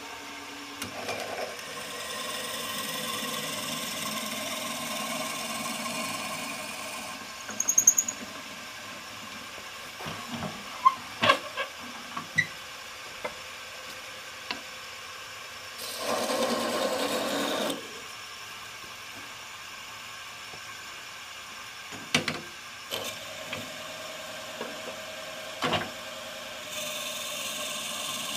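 Wood lathe running at reduced speed while a drill bit in a hand-held chuck bores into the spinning wooden bead blank. A louder stretch of noise comes about sixteen seconds in, with scattered clicks and knocks of the chuck and tools in between.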